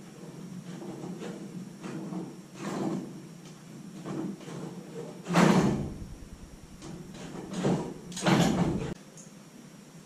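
Metal knocks and clunks from a garage door torsion spring being unwound by hand with screwdrivers used as winding bars in its winding cone, letting off the spring's tension. A series of separate knocks, the loudest about halfway through, with a low rumble under the later ones.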